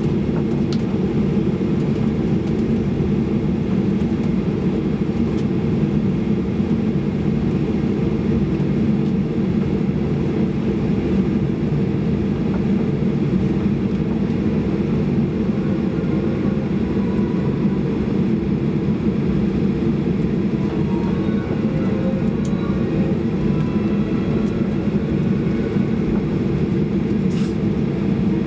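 Steady cabin noise inside a Boeing 737-800 taxiing on the ground: a constant low hum from the CFM56 engines at taxi idle.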